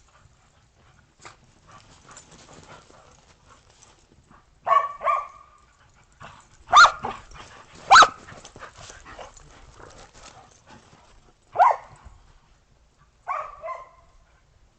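Dogs barking in play, about seven sharp barks in loose pairs and singles, with faint scuffling between them.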